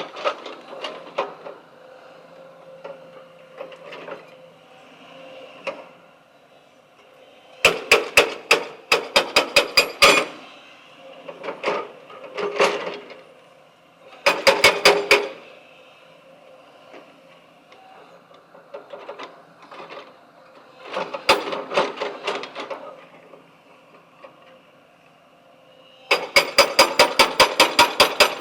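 Rapid mechanical hammering in bursts, roughly seven sharp blows a second. Several runs are separated by quieter pauses, and a steady run starts near the end.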